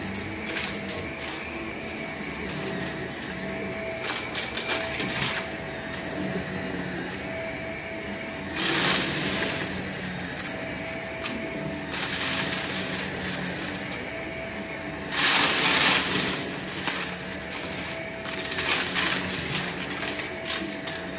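Shark upright vacuum cleaner running over a shag rug, sucking up dried petals and small debris that rattle and click through it. Three times the rush of air gets louder for a second or so.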